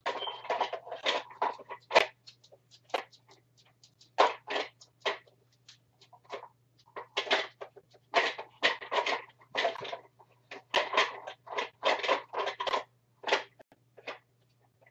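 Plastic blender parts being handled and fitted together: irregular rustles, scrapes and clattering knocks, with a sharp click about two seconds in and another about a second later.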